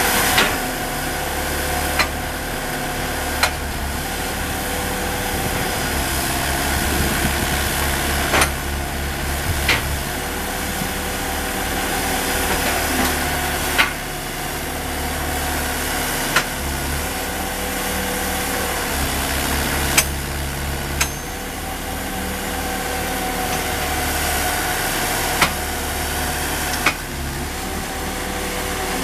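Engine-driven hydraulic power unit running steadily to drive a static pipe-bursting machine, its low note changing every few seconds. Sharp short knocks come roughly every one to four seconds, about ten in all.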